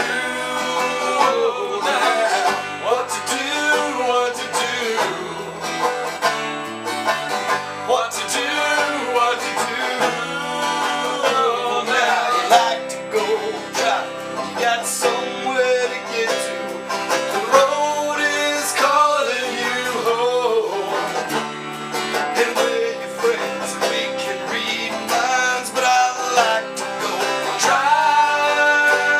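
Country or bluegrass music with banjo and guitar picking and a singing voice.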